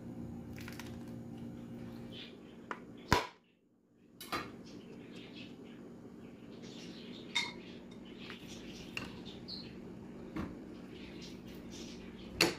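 Kitchen handling sounds: scattered clinks and knocks of utensils and a stainless steel pot over a steady low hum, with a sharp knock about three seconds in and another near the end.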